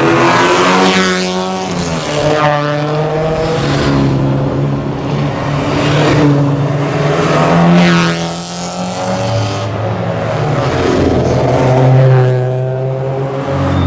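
Sports car engines on a race circuit, several cars passing one after another. Each engine note drops in pitch as the car goes by, about four times in all, over the steady sound of other engines further off.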